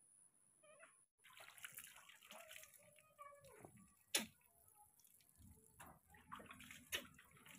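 Faint splashing and dripping of water as hands lather and rinse a baby monkey, with a single sharp tap about four seconds in.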